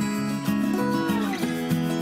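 Background music: a guitar-led instrumental track with held, changing notes and a few sliding pitches.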